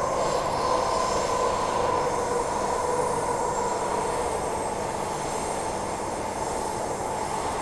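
Transperth A-series electric multiple unit heard from inside the carriage while running: steady rail running noise with a steady whine under it, easing slightly toward the end.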